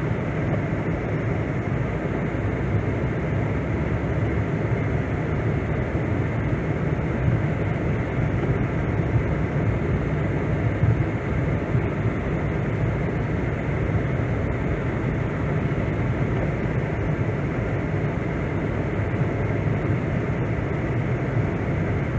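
Steady rumble of a car driving, heard from inside the cabin: engine and tyre noise.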